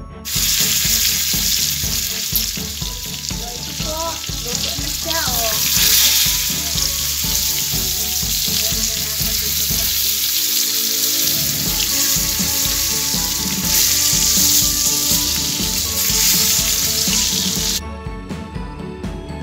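Stuffed squid frying in hot oil in a pan: a loud, steady sizzle that cuts off suddenly near the end.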